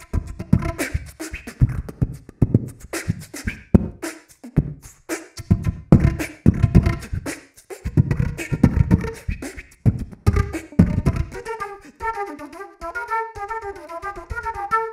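Flutebox: beatbox kicks and snares voiced through a concert flute, with breathy flute tones between the hits. Near the end the percussion thins out and a run of quick flute notes takes over.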